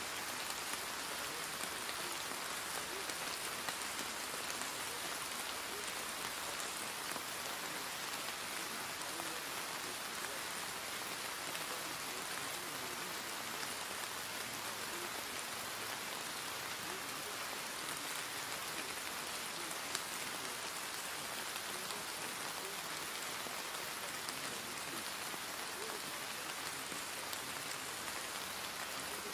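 Steady rain falling, an even hiss of many drops that holds without a break, with an occasional single louder drop.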